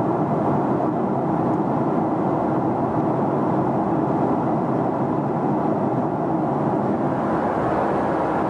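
Steady in-flight cabin noise of a Boeing 777-300ER in descent, heard from a window seat beside the GE90-115B engine: an even rush of airflow and engine noise that does not change.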